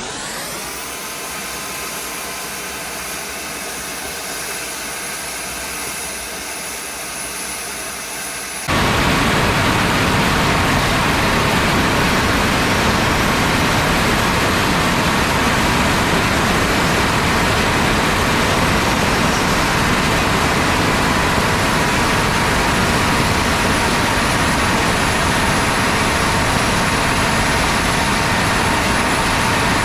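Turbochargers on a homemade twin-turbo furnace spinning, with a high whine and a rush of air like a jet engine. About nine seconds in it suddenly gets much louder and rougher and stays there.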